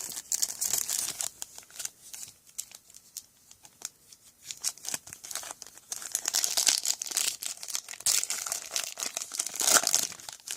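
Foil wrapper of a football trading-card pack crinkling and being torn open, a rapid irregular crackle in bursts, loudest near the end.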